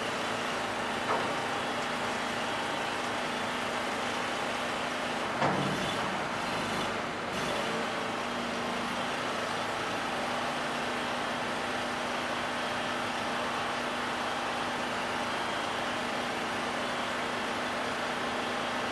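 Engine of an under-bridge platform truck running steadily while the hydraulic platform is positioned beneath the bridge. There is a light knock about a second in and a louder clunk about five and a half seconds in.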